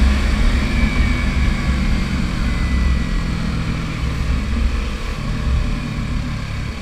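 Yamaha R3's 321 cc parallel-twin engine running under way through a Yoshimura R77 carbon exhaust with resonator, a deep, low exhaust note that eases off slowly over a few seconds.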